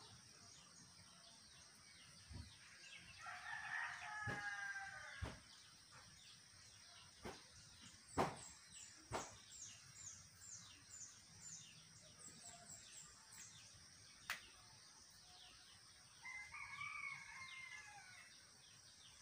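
A rooster crowing faintly twice, each crow about a second and a half long, one near the start and one near the end. In between come a few sharp clicks, the loudest about eight seconds in, and a run of thin, high chirps.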